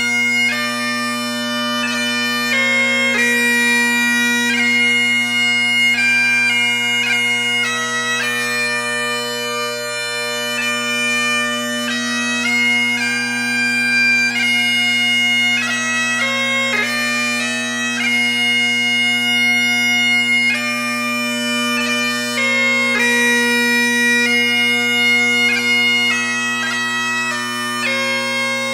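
Bagpipe music: a quick chanter melody played over steady, unbroken drones.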